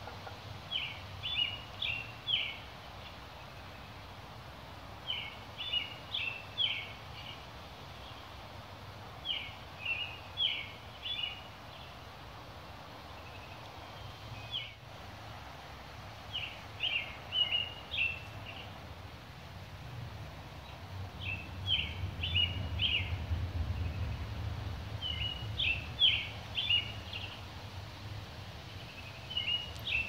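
A songbird sings the same short phrase of several quick notes over and over, about every four seconds, over a steady outdoor hiss. In the second half a low rumble swells and fades.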